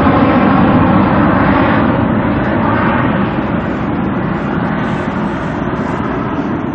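Jet airliner's engines, loud and gradually fading as the aircraft passes and moves away.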